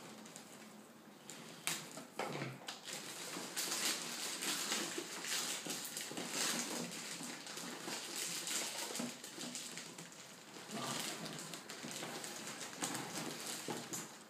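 Stiff clear plastic packaging and a vinyl case rustling and crinkling as hands work inside it, with scattered crackles and clicks throughout.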